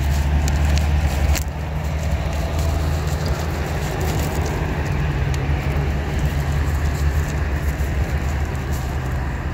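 Steady low rumble of wind buffeting the microphone, with light crinkles and rustles as a plastic bag and gloves are handled.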